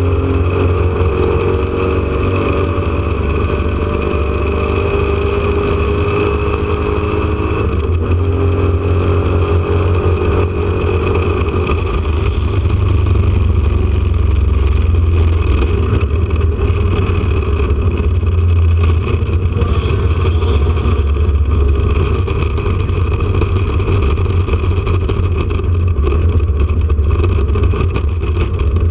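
Porsche 911 RSR's air-cooled flat-six engine running, heard from inside the car as a loud, steady low drone with no big swings in revs.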